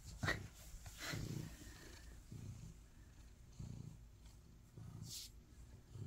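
Domestic cat purring while being petted, the purr swelling and fading about once a second with its breathing. Short rustles of a hand rubbing its fur come near the start and about five seconds in.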